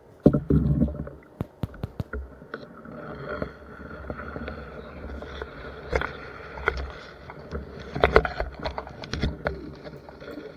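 A nylon gill net hauled by hand out of reeds into a wooden boat: rustling and brushing of net and reed stems with scattered sharp knocks against the hull. The loudest knocks come just after the start and again about eight seconds in.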